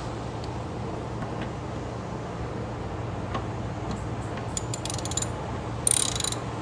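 Lawn mower's oil drain plug being tightened with a hand tool: scattered metallic clicks, a quick run of clicks about four and a half seconds in, and a louder metallic rattle near the end.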